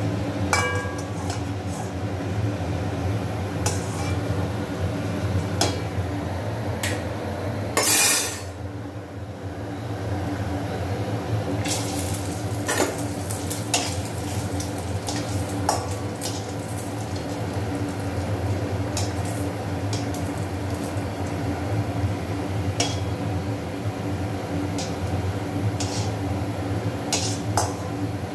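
Steel slotted spoon clinking and scraping against a stainless-steel kadai while bread omelette pieces fry in oil, over a steady low hum. About eight seconds in there is one short, loud burst of noise.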